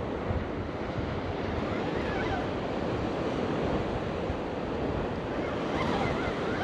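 Surf washing onto a beach, a steady rush of waves, with wind buffeting the microphone.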